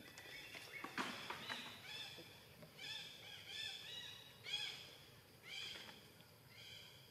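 Macaque calls: a string of short, high-pitched squeals and coos, one after another, with a brief rustling burst about a second in.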